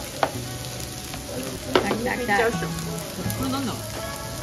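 Steaks sizzling on hot iron platters: a steady crackling hiss, with two sharp clicks, one just after the start and one near two seconds in.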